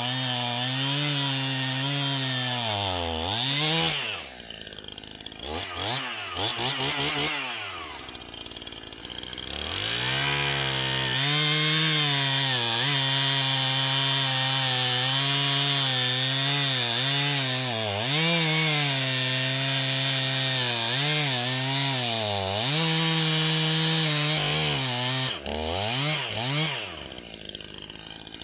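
Stihl MS 271 Farm Boss two-stroke chainsaw cutting an aspen log into rounds, the engine at full revs with its pitch sagging and recovering as the 18-inch bar and chain bite. It drops to idle about four seconds in, is blipped, then runs through a long cut before falling back to idle near the end.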